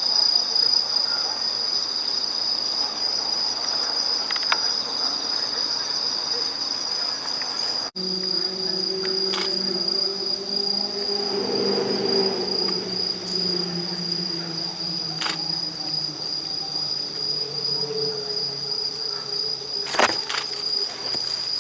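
Night chorus of singing crickets: a steady, high-pitched trill that never lets up. In the second half a low hum comes in and slowly falls in pitch, and a few sharp clicks sound over it.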